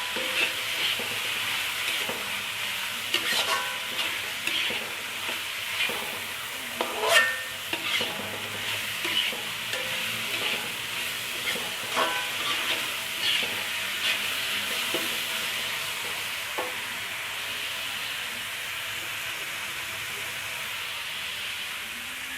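A chili and tomato mixture sizzling in hot oil in a pan, stirred with a utensil that clicks and scrapes against the pan at irregular moments. The stirring stops about three quarters of the way through, leaving only the steady sizzle.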